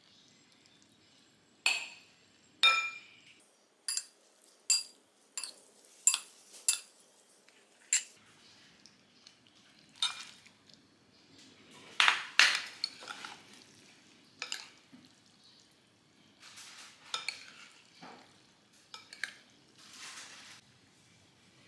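Metal spoon and fork clinking against ceramic plates and a bowl as noodles and wontons are scraped in and then stirred through a sauce: a string of sharp, briefly ringing clinks, loudest about halfway through, giving way to softer scraping and mixing near the end.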